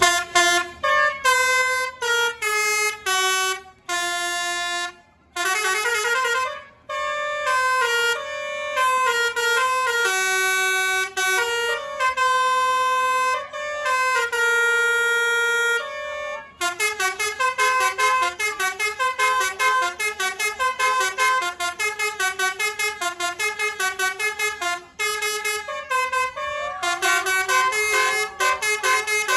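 Basuri telolet musical air horn on a Tunggal Jaya coach playing a tune: held notes of changing pitch with short breaks for about the first sixteen seconds, then a fast run of quick short notes.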